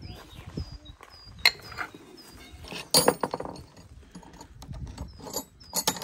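Irregular clicks and knocks of hand work with tools, the loudest about a second and a half in, near three seconds and near the end.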